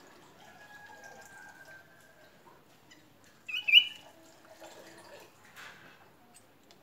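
Hammer tapping twice in quick succession about halfway through, each tap with a sharp high ringing ping, then a fainter knock: fastening the loose orchid to the mango trunk.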